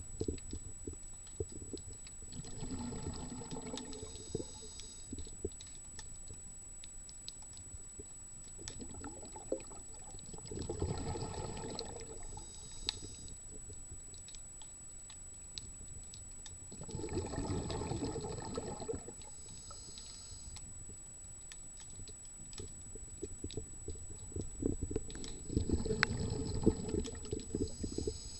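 Underwater, a scuba diver's exhaled breath bubbles out of the regulator in four swells, about every seven seconds. Steady faint clicking runs throughout.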